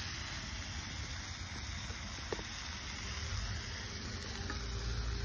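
Steady hiss of chopped vegetables frying in a wide steel pan over an open wood fire, with one light tick about two seconds in. A low rumble of wind on the microphone builds from about halfway.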